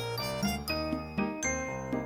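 Background music: a quick melody of ringing pitched notes over a steady bass line.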